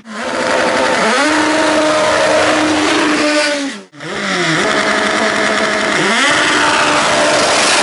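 Naturally aspirated Honda K-series four-cylinder engines in street-race Civics revving hard. The revs climb sharply and are held high and steady for a couple of seconds, then fall away. After a sudden cut they climb and hold again, with a short dip about two seconds later.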